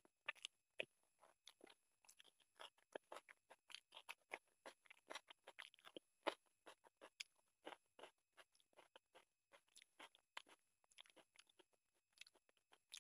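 Quiet, close-up wet chewing and lip smacks of someone eating chicken curry and rice with the hand, along with fingers squishing rice on the plate: a quick, irregular run of short clicks and smacks.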